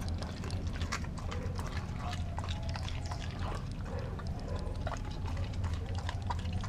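Doberman eating raw food close to the microphone: irregular wet smacking, licking and chewing clicks, over a steady low hum.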